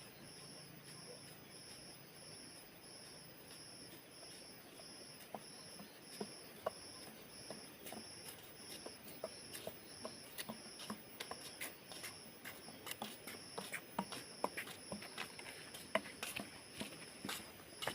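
Insects chirping in a steady rhythm, about two high-pitched pulses a second, with irregular sharp clicks and taps that grow busier from about five seconds in.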